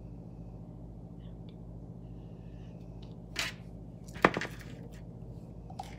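Metal spoon knocking and clicking while scraping slime out of a plastic container: a short knock about three and a half seconds in and a sharper, louder click soon after, over a steady low hum.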